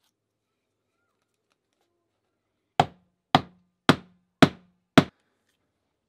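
Ball peen hammer on a new wooden handle, its handle end rapped down on a wooden bench top five times, about half a second apart: sharp knocks, each with a short low ring.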